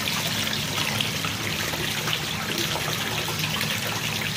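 Water pouring steadily from a pond pump's PVC return pipe into the pond, a continuous splashing trickle with a low steady hum underneath.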